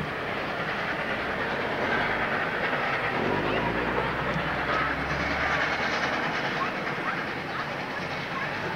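Oil-fired 141R Class 2-8-2 steam locomotive working a train up the grade, heard as a steady, unbroken sound of the locomotive and train.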